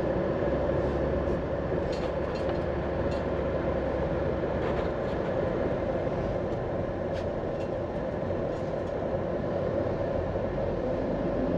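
Steady road and engine noise inside a car driving in city traffic: an even low rumble with a constant drone.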